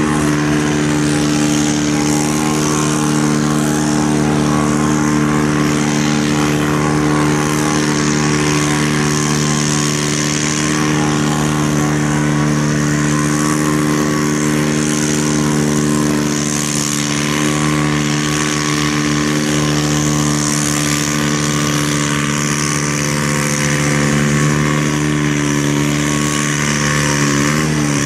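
Farm tractor engine working steadily under heavy load, pulling a weight-transfer sled slowly down a pulling track, its pitch and loudness holding even throughout.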